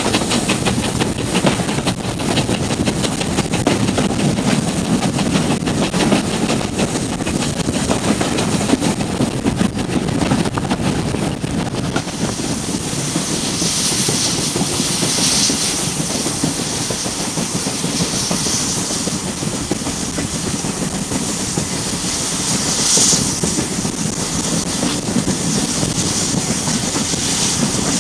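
Train carriages running at speed, heard from an open window of a steam-hauled train: wheels rolling over the rails with a dense rapid clatter, under steady rushing noise. From about halfway through the high hiss grows stronger and comes and goes.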